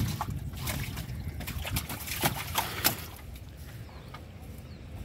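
Wet nylon gill net being hauled in over the side of a wooden boat, water dripping and splashing off it. Quick slaps and rustles come through the first three seconds, then it settles to quieter trickling.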